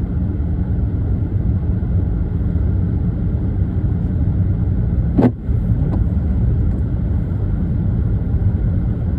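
A car driving on a slushy, snow-covered road, heard from inside the cabin: a steady low rumble of engine and tyres, with a single sharp knock about five seconds in.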